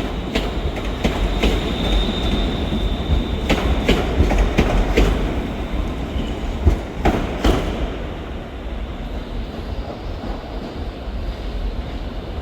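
ScotRail Class 380 electric multiple unit rolling through the station, its wheels clicking over rail joints and points, with a thin, brief wheel squeal about two seconds in. The clicks stop after about seven and a half seconds, leaving a low rumble.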